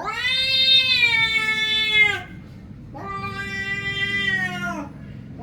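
Cat giving two long, drawn-out meows, each falling in pitch at its end, with a short pause between them.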